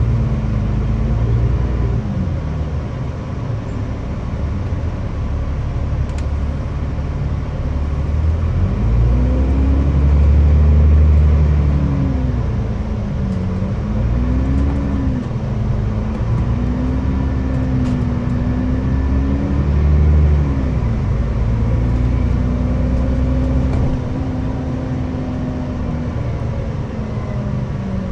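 Diesel engine of an ADL ALX400-bodied Trident double-decker bus with a Voith automatic gearbox, heard from the upper deck. The engine note rises and drops several times as the bus accelerates and changes up through the gears, then holds steady while it cruises, and falls away near the end.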